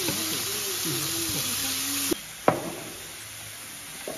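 Meat frying on an electric grill pan, sizzling loudly. About two seconds in the sizzle cuts off abruptly to a quieter hiss, with a single click soon after.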